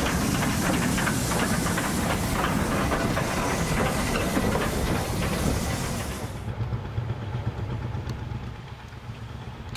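Steam tank locomotive and its carriages going by: a loud hiss of steam with rapid clicks over a low rumble. About six seconds in the hiss cuts off, and the train's rumble fades away.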